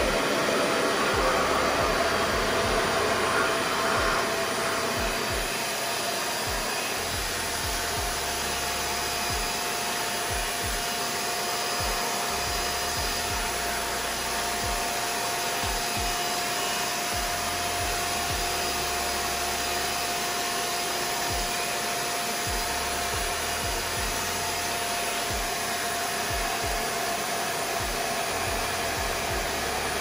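RevAir reverse-air hair dryer running, pulling air through its wand with a steady rush of air and a steady whine. It is a little louder for the first four seconds and then settles to an even level.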